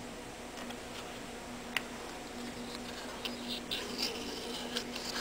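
Razor blade slitting the leathery shells of reticulated python eggs: faint scratching and small clicks, one sharper click about two seconds in and more frequent scratching near the end, over a steady low hum.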